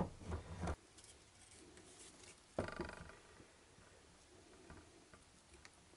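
Handling noises from an XJ900S motorcycle alternator being taken apart by hand. A sharp knock and a couple of softer knocks come at the start, then a short scraping rattle a few seconds in as its rear cover comes off, with a few faint ticks after.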